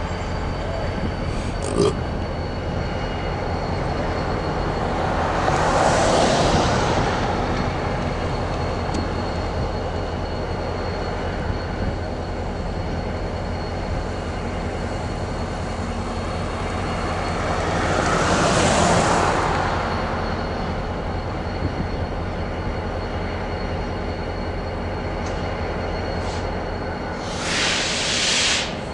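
Diesel freight locomotive running steadily with a low drone, two slow swells of noise rising and falling, and a short loud hiss near the end that cuts off suddenly.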